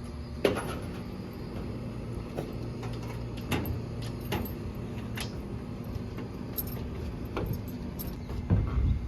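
Scattered sharp clinks and knocks, about a dozen, over a steady low hum. The loudest knocks come about half a second in and near the end.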